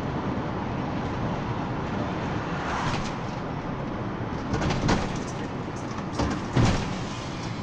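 Cabin noise inside a moving Mercedes-Benz Sprinter minibus: steady engine and road noise, with a few sharp knocks and rattles in the second half.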